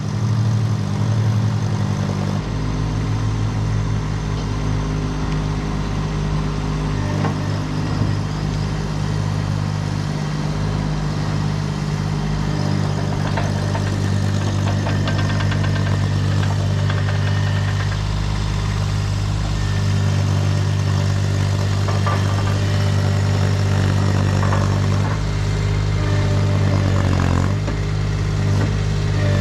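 Kubota D1105 three-cylinder diesel of a Baumalight TRL620D mini track loader running at a fairly steady speed while the machine works. Knocks and clatter come through in the middle, and the engine speed dips briefly near the end.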